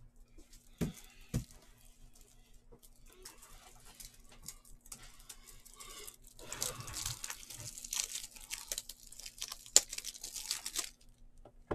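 Plastic wrapping being torn and crinkled off a Topps Tier One baseball box, the crinkling loudest and densest in the second half, with one sharp snap near the end of it. Two short knocks come a little after a second in.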